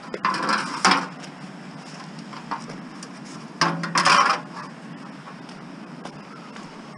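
Long strips of heavy-gauge metal flashing clattering and rattling against each other as they are handled and carried, in two short bursts: about a second in and again around four seconds in.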